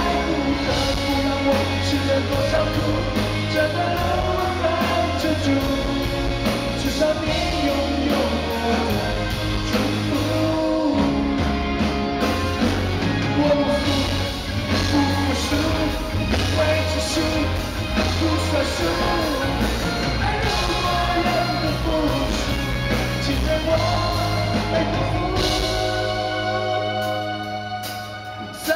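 Live rock band playing, with a male lead singer over electric guitars, drums and keyboards. Near the end the drums and bass drop out, leaving held chords.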